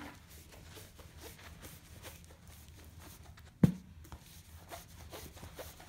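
Faint rustling and handling of a diamond painting canvas being rolled backwards against its curl, with one sharp knock about three and a half seconds in.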